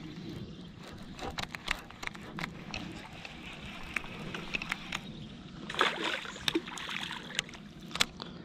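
Scattered sharp clicks and light knocks from a baitcasting reel and rod being worked from a kayak, with a brief rushing burst about six seconds in.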